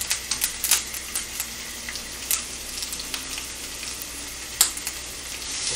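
Food sizzling in oil in a frying pan on a gas hob while it is stirred with a metal spoon and chopsticks; the utensils click against the pan now and then. The sizzle grows louder near the end.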